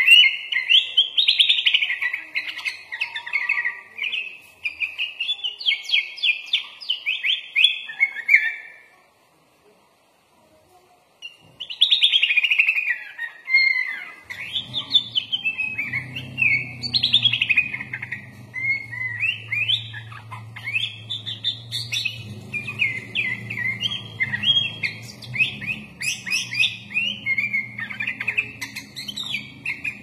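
Sooty-headed bulbul singing a fast, varied song of chirps and trilled phrases, with mimicked phrases of other birds mixed in. The song breaks off for about two seconds a third of the way in, then resumes; about halfway a steady low hum comes in underneath.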